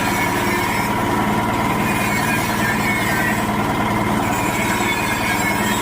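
Areca nut splitting machine running steadily, its engine turning at an even speed with a fast regular beat and a steady whine.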